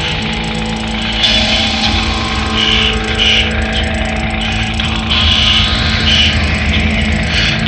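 Experimental electronic music: a dense, buzzing synthesizer drone, with a steady low tone that enters just after the start and gritty noise swells that recur about once a second over a rumbling low end.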